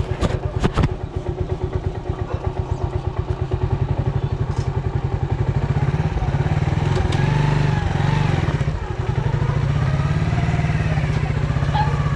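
Motorcycle engine idling with an even low pulse, with a few sharp knocks in the first second. Faint voices are heard in the background later on.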